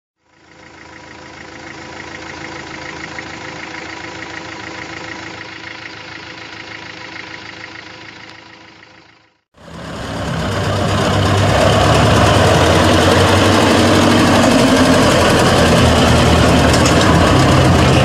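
Monster truck's engine running loud and steady as the truck drives slowly over dirt, fading in about nine and a half seconds in. Before it comes a softer steady mechanical drone with a pulsing whine, cut off by a brief silence.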